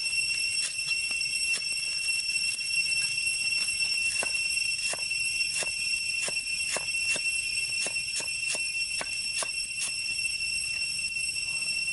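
A large knife chops through vegetables onto a wooden chopping block in quick, even strokes, about two a second through the middle of the stretch. A steady high-pitched ringing drone runs underneath throughout.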